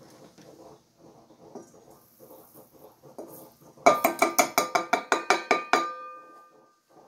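Faint rustling and scraping, then about halfway through a quick run of about a dozen sharp knocks as a manual coffee grinder's wooden grounds drawer is tapped against a stainless steel bowl to knock the ground coffee out. The bowl rings after each knock, and the ringing fades out near the end.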